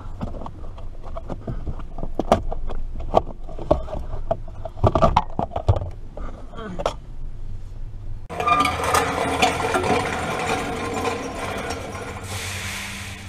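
Scattered clicks and knocks of hands and tools working on plastic trim and steering-column parts under a car's dashboard. About eight seconds in, the sound cuts abruptly to a denser, steady background.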